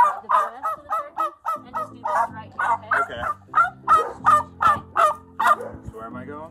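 Domestic white turkey giving a fast run of loud, short yelping calls, about three a second, while being picked up and held. The calls ease into softer chatter near the end.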